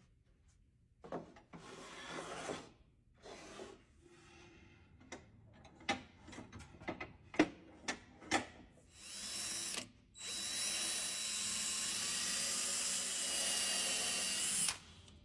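Handheld drill boring a hole through the corner of a wooden drawer's rabbet joint, running steadily for about four and a half seconds in the second half with its pitch creeping up slightly before it stops; the hole is for a brass pin. Before it come a few short knocks and brief rubbing noises as the drawer is handled and set in a vise.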